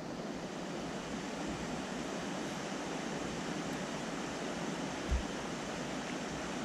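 Small mountain stream running over stones, a steady rushing, with a brief low thump about five seconds in.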